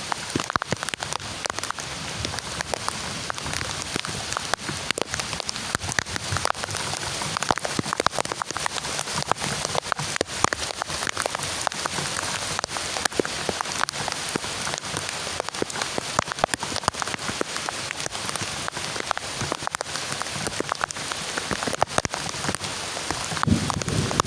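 Heavy rain falling, a dense patter of drops striking a surface close to the microphone. A low rumble builds near the end.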